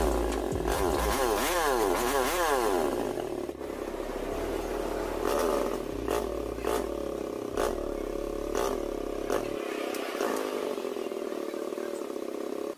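Small Suzuki motorcycle engine running, revved quickly up and down several times in the first few seconds. It then runs on more steadily, with a sharp short sound roughly once a second.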